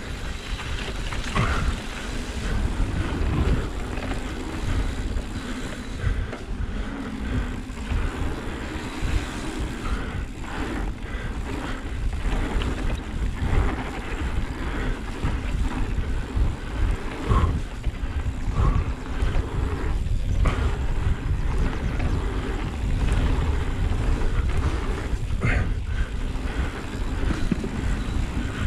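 Mountain bike riding fast down a dirt trail: wind buffeting the microphone over the rolling of the tyres, with occasional knocks as the bike hits bumps.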